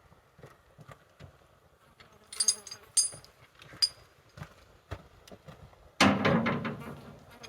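A few sharp metallic clinks with a brief ringing tone, then a single heavy thud about six seconds in that booms and dies away over a second or so.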